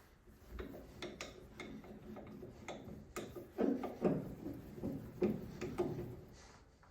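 Irregular clicks and knocks, with a run of louder clunks in the second half.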